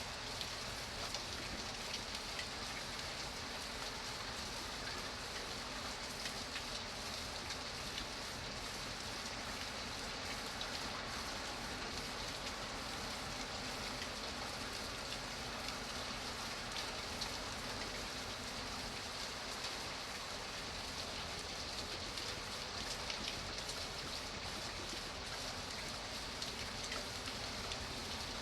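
Steady rain falling, a continuous hiss with many small drop ticks and patters.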